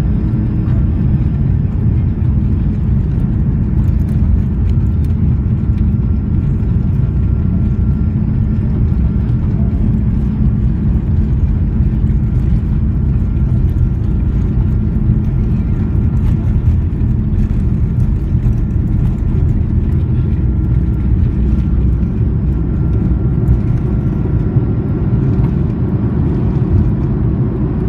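Airbus A330-300 turbofan engines at takeoff thrust, heard from inside the cabin during the takeoff roll: a loud, steady low rumble with a faint whine above it.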